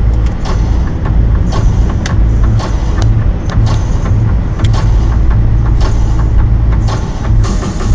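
Steady low rumble of a car's road and engine noise heard from inside the cabin at motorway speed, with irregular short clicks or knocks over it.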